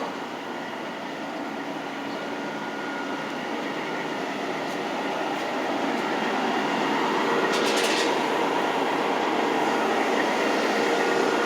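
Steady machinery noise with a faint hum in it, growing gradually louder, with a brief rattle of clicks about eight seconds in.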